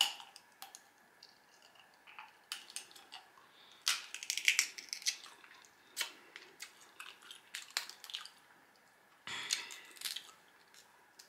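Crab leg shells cracked and pulled apart by hand close to the microphone, with wet sucking and chewing of the meat. Sharp cracks come in a cluster about four seconds in and again near the end.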